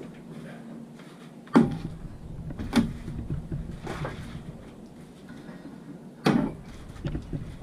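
Weights being lifted off a plywood dinghy hull and set down after gluing on the keel runners: three distinct knocks with softer handling sounds between.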